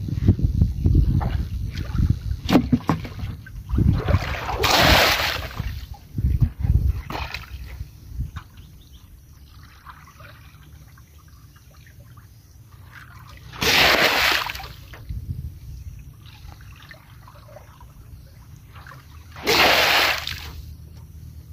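Muddy water sloshing and splashing as an aluminium basin is scooped and swirled through a shallow puddle. It is busiest in the first several seconds, then there are two short bursts of water pouring out of the tipped basin, near the middle and near the end.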